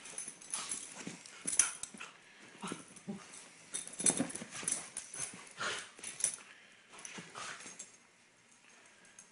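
A beagle playing with a kitten on a blanket: irregular scuffling, rustling and short soft dog noises, with no barking. It dies down near the end.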